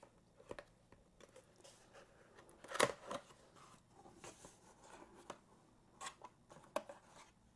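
Cardboard retail box being opened by hand: short scrapes, rustles and taps of card against card as the box is slid and its lid lifted, the loudest scrape about three seconds in.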